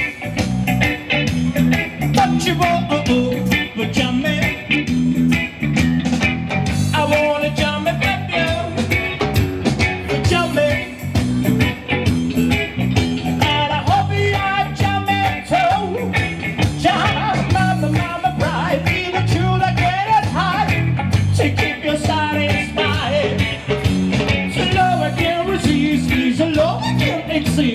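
A live rock band playing steadily: drums keep a regular beat under an electric bass and a Telecaster-style electric guitar, with a melodic line that bends in pitch.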